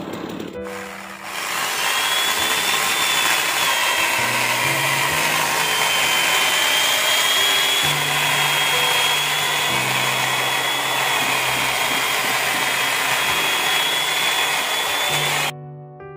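Corded electric power tool running under load as it cuts into a wooden log, a steady loud noise with a thin, slightly wavering whine. It starts about a second in and cuts off suddenly near the end.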